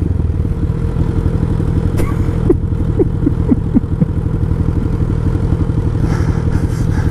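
Motorcycle engines idling steadily at a standstill: a Honda Grom 125 with a sports bike alongside. A few short chirps come about three seconds in.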